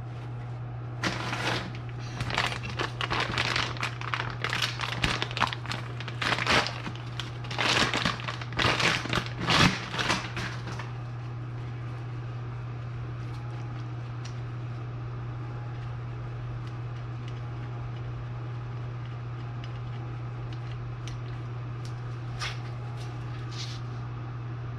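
Irregular clatter, clicks and scrapes of hand work on metal parts and tools for about ten seconds, then a steady low hum with two faint clicks near the end.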